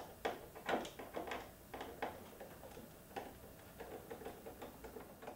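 A T25 Torx screwdriver working screws out of a motorcycle fairing, heard as a run of small irregular clicks and ticks. The clicks are denser and louder in the first two seconds, then thin out.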